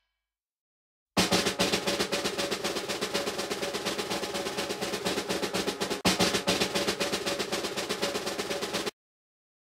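Drum roll sound effect: a rapid drum roll starts abruptly about a second in, begins again with a louder stroke about six seconds in, and cuts off abruptly near the end.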